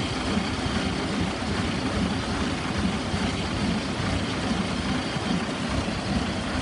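Fiat AIFO 17.2-litre twin-turbo V8 diesel of an IVECO Magirus TurboStar 190-48 truck idling steadily.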